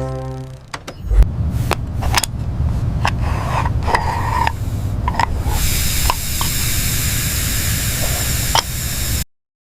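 A steady low rumble with scattered clicks and knocks, joined by a loud hiss about halfway through; the sound cuts out abruptly near the end.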